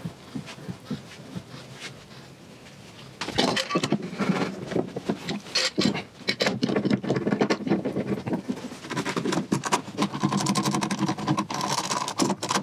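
Glue roller rolling along a board edge, softly at first. Then, from about three seconds in, a louder run of clattering and knocking from steel bar clamps being set across a glued-up wooden panel and tightened, with some metallic ringing near the end.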